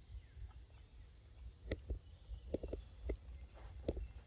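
Steady high-pitched chirring of insects, with scattered soft crackles and taps starting about a second and a half in.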